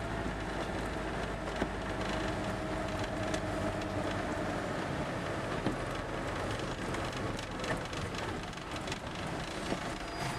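Vehicle engine and tyre noise heard from inside the cab while driving slowly on a wet road: a steady low rumble with a faint whine that slowly drops in pitch, and a few small clicks.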